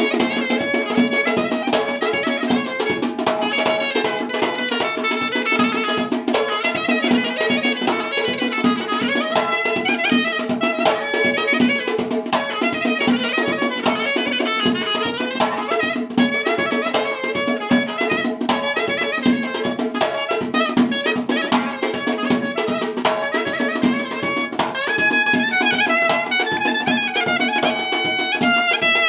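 Live traditional Dagestani wedding-band music: a clarinet plays a busy, ornamented melody over a steady drone and regular drum beats.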